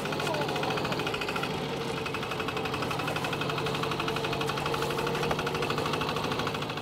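Small work boat's engine running steadily with a rapid, even knocking beat.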